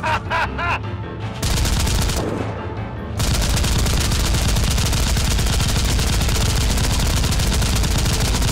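Rapid automatic gunfire in a continuous stream of closely spaced shots, starting about three seconds in, over background music.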